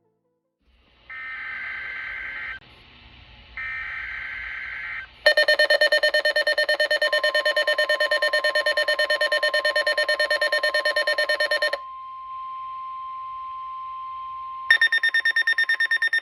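Emergency alert tones opening a NOAA Weather Radio tornado watch: two short screeching bursts of SAME header data, then a loud, rapidly pulsing alarm buzz with the steady 1050 Hz warning tone beneath it. The buzz stops about two thirds of the way in while the warning tone holds on alone, and the pulsing buzz comes back briefly at the very end.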